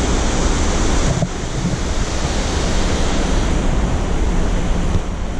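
Steady rushing water of Upper Mesa Falls, a large waterfall on the Henrys Fork. A little over a second in, the high hiss drops off abruptly and stays duller.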